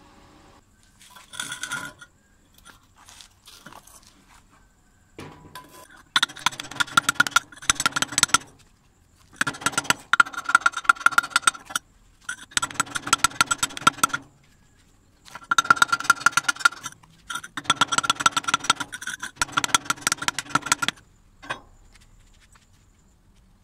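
Bursts of rapid metal-on-metal tapping and scraping on a welded steel tube, about six bursts of one to two seconds each, with the steel ringing. This is slag being cleaned off a fresh stick (SMAW) weld bead.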